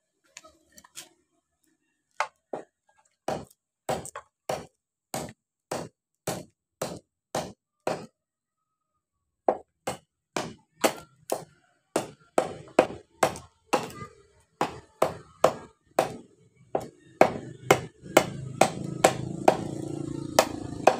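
A forged knife chopping again and again into the top of an upright wooden stick, a sharp crack of blade into wood with each blow. About two blows a second at first, a short pause, then a longer, faster run of about two to three a second.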